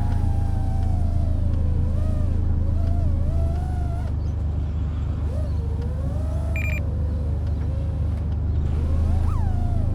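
5-inch FPV freestyle quadcopter flying, its motors whining in a pitch that keeps swooping up and down as the throttle changes through flips and rolls, over a steady low rumble. A short high beep sounds about two-thirds of the way in.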